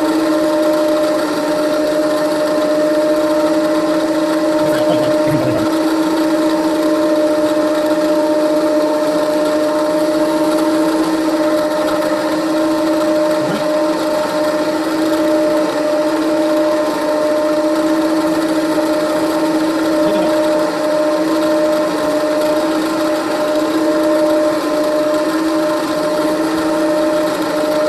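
Milling machine spindle running steadily with a 1/8 inch end mill cutting a keyway into a shaft: an even, unbroken motor hum with a steady tone.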